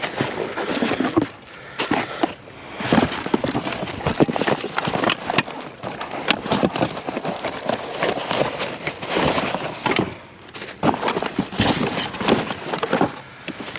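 Pieces of scrap metal clanking and rattling against one another as they are picked through and handled, a dense, irregular run of knocks.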